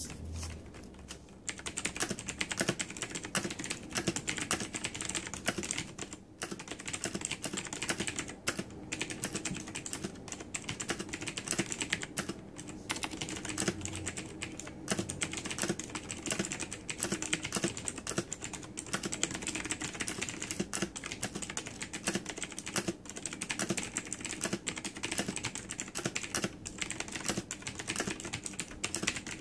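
Continuous fast typing on a Razer BlackWidow Ultimate mechanical keyboard with clicky switches: a dense stream of key clicks with a few brief pauses.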